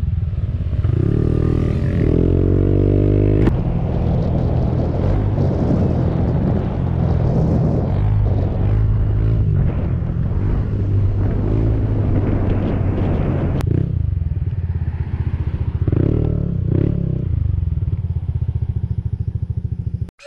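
Motorcycle engine running steadily while riding, with rushing air noise; the engine note shifts about one to three seconds in.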